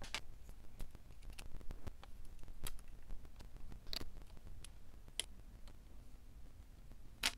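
Light handling of a carbon-fibre drone frame and its aluminium camera plate: scattered small clicks and taps as the parts knock together and a hex driver works a screw, with a sharper click near the end.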